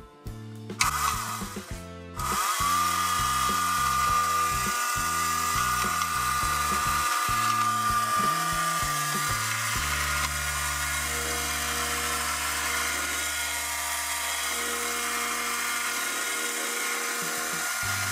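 Small electric motor of a toy vacuum cleaner switched on about two seconds in and running with a steady high whine, over background music.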